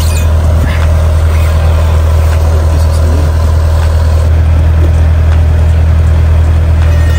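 John Deere 50G compact excavator's diesel engine running steadily at idle, a constant low hum.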